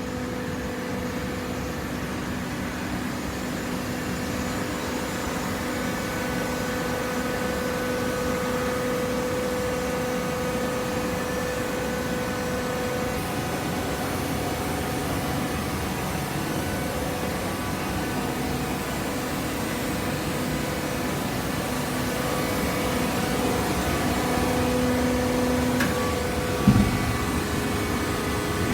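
Hydraulic waste paper baler running: a steady mechanical hum with held tones, and a single sharp knock near the end.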